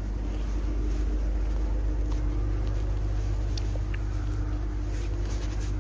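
Class 185 diesel multiple-unit trains idling at the platforms: a steady low engine hum with a constant drone.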